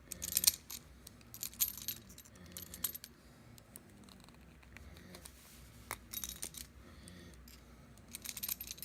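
Steel pliers clinking against a bent piece of coat-hanger wire as it is squeezed, in groups of sharp metallic clicks with quiet gaps between.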